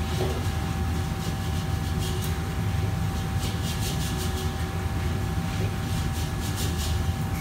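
Steady low roar of a commercial wok range's gas burner and extraction hood, with a faint steady whine over it. A metal ladle scrapes and clanks against the wok in short clusters, about two seconds in, around four seconds and again near the end.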